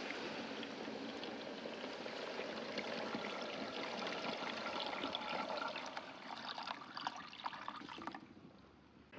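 Water pouring and splashing with many small crackles, cutting off abruptly about eight seconds in.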